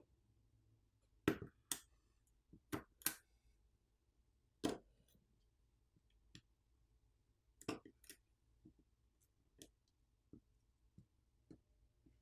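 Small, sharp clicks and taps at irregular intervals from tools and small phone parts being handled while a smartphone is taken apart. The loudest clicks come in the first two-thirds.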